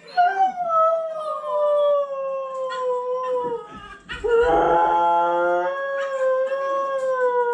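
Husky howling: one long howl that sags slightly in pitch over about three seconds, then after a brief break a second long howl, with another howling voice layered over its first second or so.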